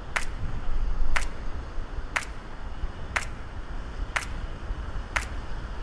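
Low rumbling wind noise on the microphone over shallow surf washing in, with a sharp click exactly once a second.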